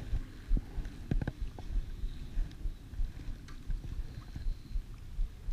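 Wind gusting over the microphone, a rumbling low noise that rises and falls, with water lapping around the wading angler. A few light clicks come about a second in.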